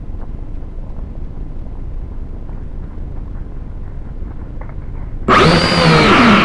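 A low steady rumble, then about five seconds in the drone's propeller motors start up suddenly and loudly, a whine that shifts up and down in pitch.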